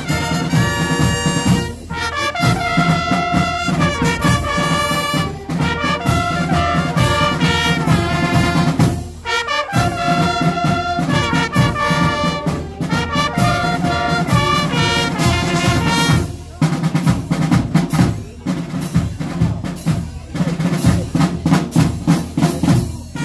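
A French-style brass and percussion fanfare playing a lively tune: trumpets, bugles and horns carry the melody over sousaphones in the bass, with bass drum and percussion keeping the beat.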